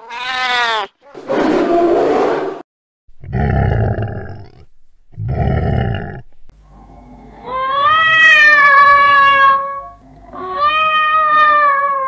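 Cat sound effects: a short yowl falling in pitch, then four rough, noisy growls, then from about seven seconds in two long meows that each rise and then fall in pitch, the first the longer.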